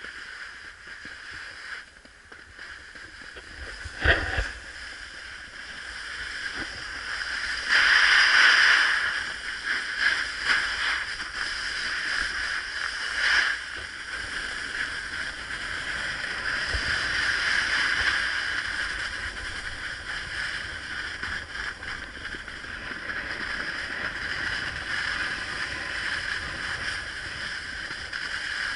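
Snowboard sliding and scraping over packed snow in a steady hiss that swells louder on the turns, loudest about eight seconds in, with a single sharp knock about four seconds in.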